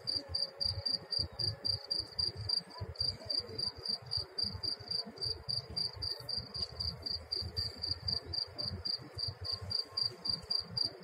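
A cricket chirping steadily, high-pitched and about three chirps a second, over an uneven low rumble of wind on the microphone.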